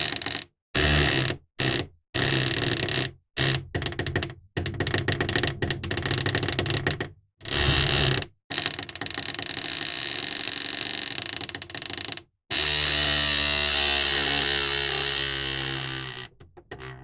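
Old wooden cupboard door hinge creaking: a string of short creaks one after another with brief silences between them, then one long creak of a slow movement that fades out near the end.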